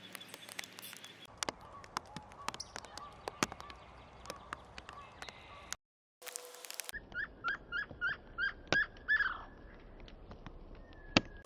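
Outdoor backyard sound in spliced segments with scattered sharp clicks and taps. About two thirds of the way in, a bird gives a quick series of about eight rising chirps.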